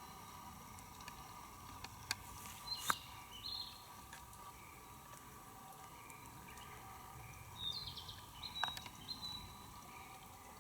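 Faint outdoor ambience with short, high chirping calls, twice in small clusters, and a few sharp clicks.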